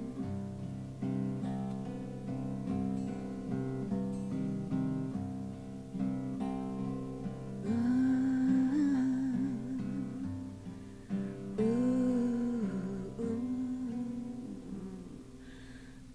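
Two acoustic guitars playing the slow closing passage of a folk song, with a voice humming a wordless line over them about eight and again about twelve seconds in. The playing fades toward the end.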